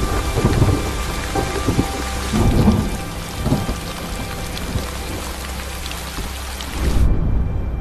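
Heavy rain pattering on water and foliage, with deep rolls of thunder underneath. The rain cuts off abruptly near the end as a low rumble swells.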